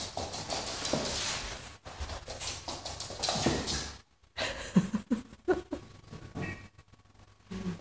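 A small dog breathing hard and snorting in quick bursts. After a short gap, a few short high whines follow.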